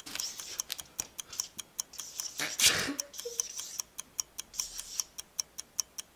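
Clock ticking, rapid and even at several ticks a second, counting down a timed drawing. About two and a half seconds in, a short, louder rush of noise cuts across the ticking.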